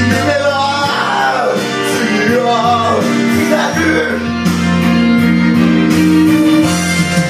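Karaoke backing music with a man singing along through a microphone for the first few seconds. After that the accompaniment carries on alone with steady held notes.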